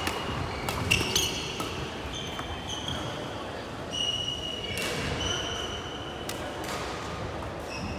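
Sneakers squeaking on a wooden sports-hall floor during badminton play, several short high squeaks, with a few sharp clicks of rackets striking the shuttlecock, the loudest about a second in.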